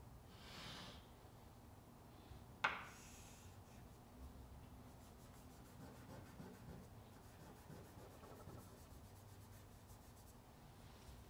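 Chalk rubbing and scraping on a chalkboard while drawing, faint, with one sharp click about two and a half seconds in.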